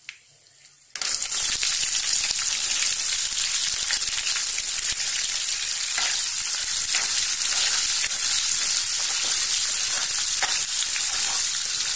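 Small onions dropped into hot sesame oil in a metal kadai start sizzling loudly about a second in and keep frying steadily while a spoon stirs them, with a few light scrapes against the pan.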